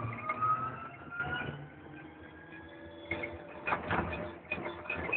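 Driverless electric pod's drive whining, rising slowly in pitch as it picks up speed. From about three seconds in, knocks and rattles.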